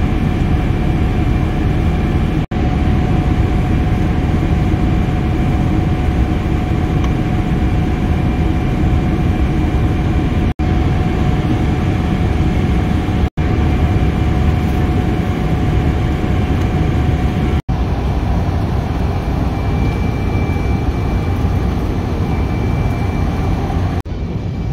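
Steady roar of a Boeing 777-300ER airliner cabin in flight, engine and airflow noise with a faint steady whine, broken by a few split-second gaps.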